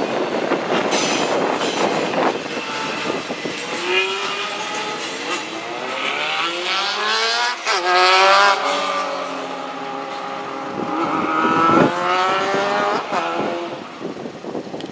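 A passing train's cars rattling and clacking, followed by an engine whose pitch climbs, then drops, then climbs and drops again as it revs up and down.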